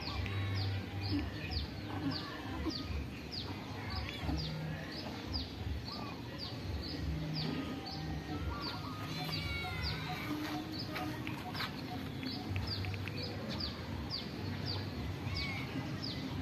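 Birds calling: a high, falling chirp repeated about twice a second, over short bursts of low calls, with a longer warbling call about two-thirds of the way through.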